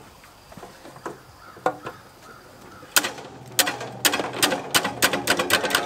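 A few scattered clicks, then a quick run of clicks and rattles from about three seconds in, from hand tools and parts being worked on a small engine.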